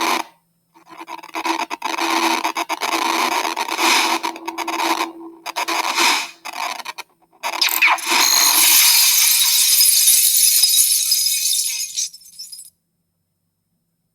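Scraping, rattling sound effects of a digital trading-card pack being opened, in several stretches broken by short gaps, then a bright hiss that swells and cuts off suddenly about twelve and a half seconds in, followed by silence.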